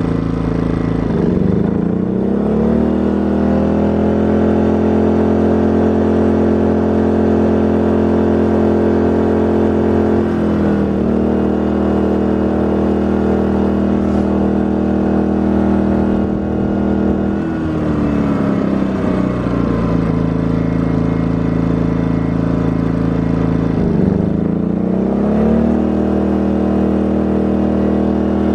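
Small portable inverter generator engine running steadily under load, its speed dipping and settling several times: about a second in, near the middle, and twice more later. The shifts in speed come from the economy mode throttling the engine to the load.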